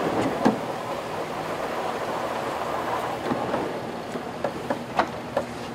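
Volvo Ocean 65 racing yacht under way: a steady rush of water and wind over the deck, with several sharp knocks and clicks from deck gear, most of them in the second half.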